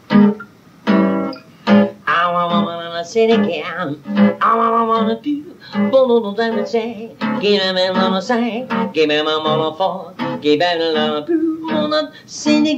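Jazz tune on a strummed acoustic guitar with a man singing over it, in a home recording made on an old bakelite tape recorder.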